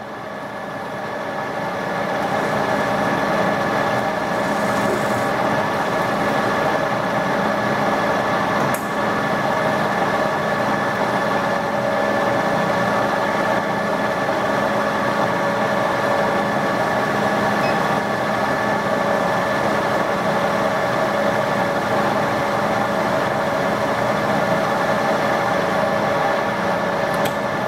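Metal lathe running at a steady speed, its drive giving a whine of several constant tones, while a carbide-insert tool turns a small piece of brass stock. The sound grows louder over the first few seconds, then holds steady, with one brief click about nine seconds in.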